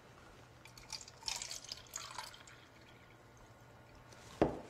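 Water poured from a plastic pitcher into a small plastic cup: a faint trickle with drips, then a single light knock near the end.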